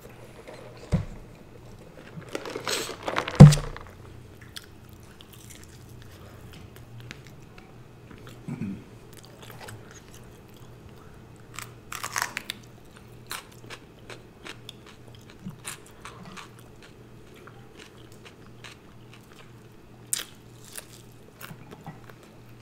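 Close-up eating sounds: a person biting and chewing food, with short crunches and clicks spread through. A noisy stretch about two to three and a half seconds in ends in a loud thump, the loudest sound.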